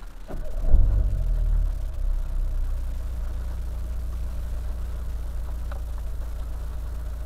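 Car engine idling steadily, with a brief surge in engine sound about a second in before it settles.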